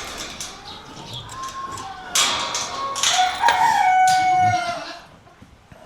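A rooster crowing once: a multi-part crow that starts about two seconds in and ends in a long held note, breaking off shortly before the end.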